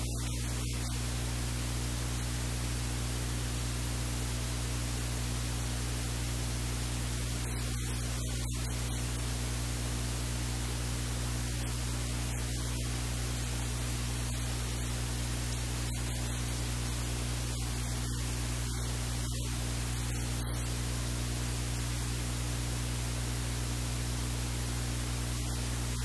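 Steady hiss with a low electrical hum underneath, unchanging.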